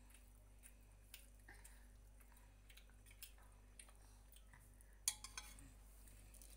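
Mostly near silence with faint scattered ticks, then three sharp clinks of a steel ladle against a steel plate about five seconds in as curry is served.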